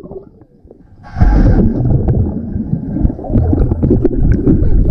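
Muffled underwater rumbling and gurgling of churned pool water and bubbles, heard through a submerged GoPro's waterproof housing. It starts about a second in with a brief brighter rush, then goes on as a dense low rumble with scattered small clicks.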